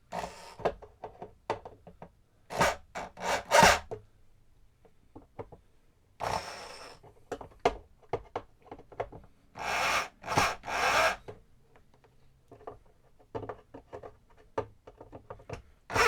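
Screws being tightened into the wooden baffle of a speaker cabinet: bursts of grinding, rubbing sound, about four of them up to a second long, among many short clicks and taps.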